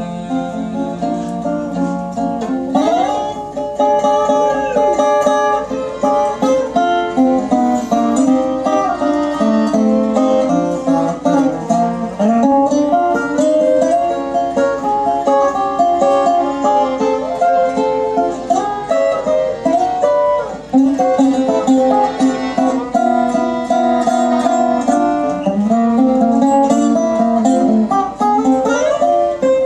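Instrumental break played on a fiddle and a 1930s National four-string tenor resonator guitar with an all-metal body: the fiddle bowing the melody with a few sliding notes, the tenor guitar picking along.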